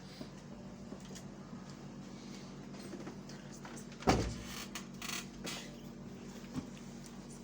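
A single sharp thump about four seconds in, followed by a second or so of shuffling and rustling, over a steady low hum.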